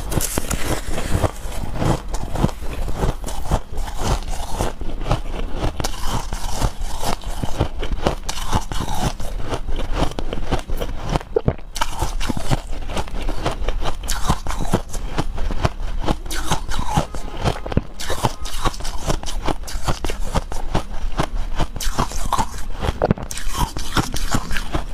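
Close-miked crackling and crunching of shaved ice as a wooden spoon scrapes and scoops through it in a plastic jug, a dense run of small crisp clicks throughout.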